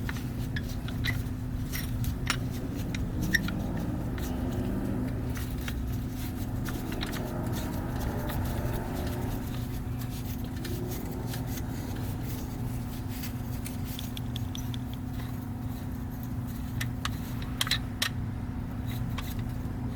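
Scattered light metallic clicks and taps of brake pads, caliper parts and tools being handled, a few sharper ones near the end, over a steady low hum.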